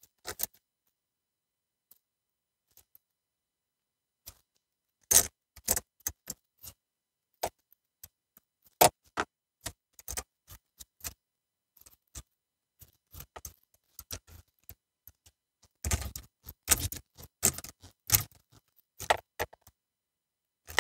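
Scattered metallic clicks and light knocks of hand work on coolant hose clamps and fittings, irregular with short quiet gaps and busier in the last few seconds.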